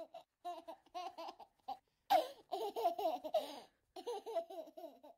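A young child laughing and giggling in short high-pitched bouts, loudest about two seconds in.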